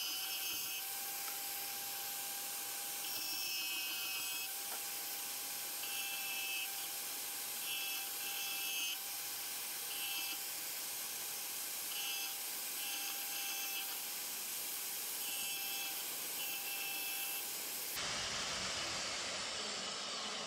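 Portable band saw running and cutting a small piece of sheet steel fed by hand, with a steady motor whine under a hiss. A higher rasping sound comes and goes in short spells as the blade bites into the metal.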